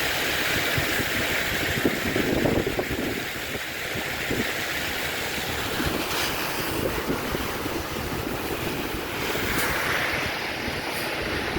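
Wind buffeting the microphone: a steady rushing noise with a gusty, fluttering rumble underneath.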